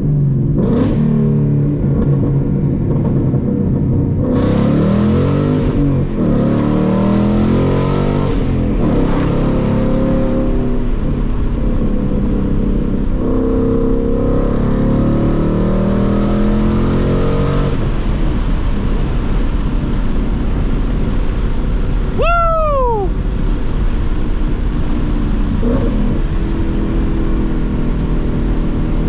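Ford Mustang GT's 5.0 V8, with a muffler delete and Steeda H-pipe, accelerating and easing off repeatedly through the gears of its six-speed manual, its pitch rising and falling. Roughly three quarters of the way through, a short falling squeal.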